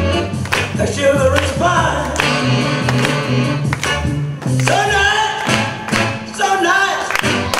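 Music for a belly dance: a singing voice with gliding, wavering pitch over a low bass and frequent drum hits.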